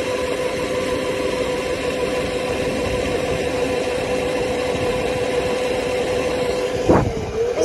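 A small dirt bike's motor running at a steady speed during a ride, a constant hum over wind and road noise. Near the end there is a sudden knock and the pitch dips briefly as the bike slows.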